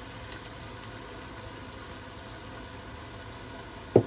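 Steady low hum with a faint hiss from the kitchen around a pot on a gas stove, with a single short knock just before the end.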